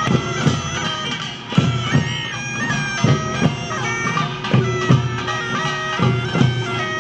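Traditional-sounding music: a loud reed wind instrument plays a melody of held notes over a steady drone, with drum beats every half second to a second.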